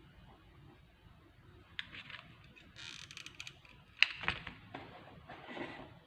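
A few sharp clicks and knocks with short bursts of rustling, as of small objects being handled; the loudest click comes about four seconds in.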